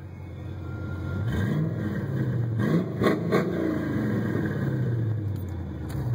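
1995 Ford Mustang GT's 5.0-litre V8 revving, heard from inside the cabin: the pitch climbs about a second in, gives three quick blips around the middle, then winds back down.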